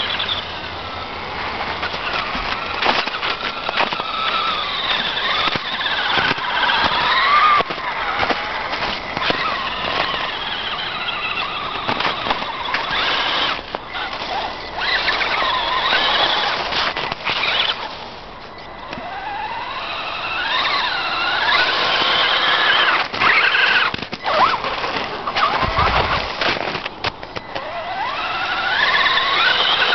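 Axial Wraith RC rock crawler's electric motor and gear drivetrain whining, the pitch rising and falling over and over as the throttle is worked, with scattered sharp clicks. It eases off briefly a little past the middle.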